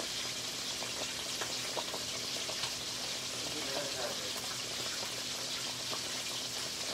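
Coconut-milk stew of bamboo shoots and shrimp bubbling in a pot on the stove, a steady sizzling hiss with faint pops.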